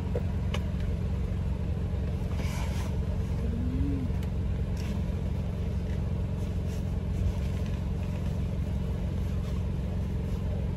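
Steady low hum of a car engine idling, with a few light clicks and rattles from a folding baby stroller being unfolded and assembled.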